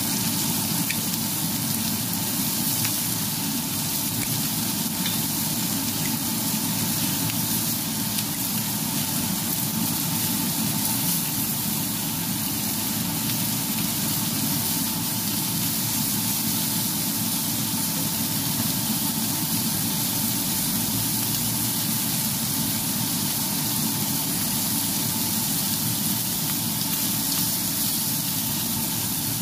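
Lamb chops and garlic cloves sizzling in hot oil in a frying pan, a steady hiss that keeps on evenly throughout.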